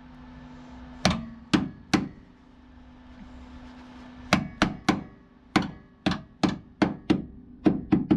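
Hammer striking a steel body repair panel to shape and fit it: sharp metallic blows with a short ring, three in the first two seconds, then a quickening run of taps from about halfway on.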